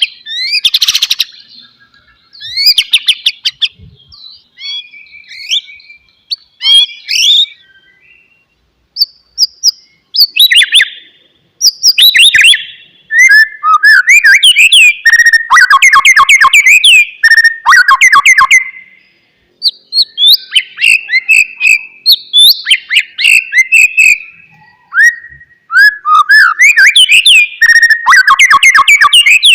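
White-rumped shama (murai batu) singing: a long run of loud, varied whistled phrases with fast sweeping notes and rapid ticking runs, sparse for the first several seconds, then dense and nearly continuous from about ten seconds in.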